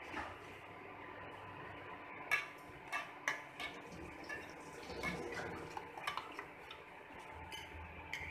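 Steel spoon stirring egg batter in a stainless steel bowl: irregular metallic clinks and scrapes of spoon against bowl, starting about two seconds in.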